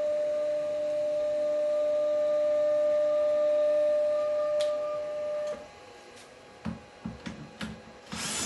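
Stepper motors driving the 3D-printed tilting turntable axis of a CNC machine, giving a steady whine that stops abruptly about five and a half seconds in. A few light knocks follow, then a short noisy burst near the end.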